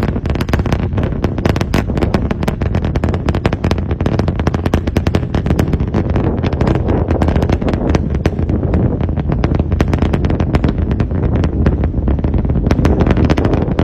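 SpaceX rocket engines heard from the ground during ascent: a loud, continuous low rumble shot through with rapid, irregular crackling pops.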